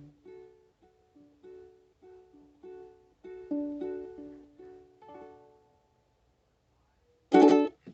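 Ukulele playing a plucked melody of single notes as the song's ending, dying away about six seconds in. A short, loud sound follows near the end.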